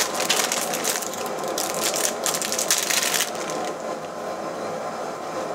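Crackling, rustling handling noise of electrical wires and small plastic parts being worked by hand, busiest in the first three seconds and then thinning out.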